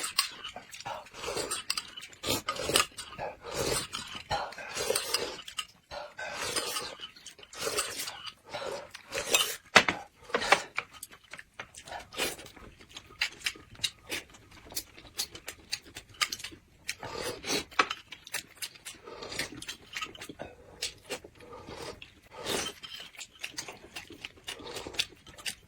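Close-up eating sounds: wet chewing and mouth smacking with irregular clinks of cutlery on dishes.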